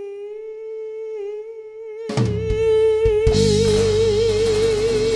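A woman's singing voice holding one long closing note of the song, alone at first. About two seconds in, drums and a cymbal crash come in, and about a second later the full band with drums and guitar plays under her as the held note takes on a vibrato.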